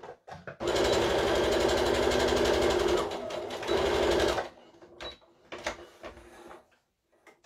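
Brother electric sewing machine stitching in a fast, steady run of needle strokes for about four seconds, easing briefly near the middle, then stopping; a few faint clicks follow.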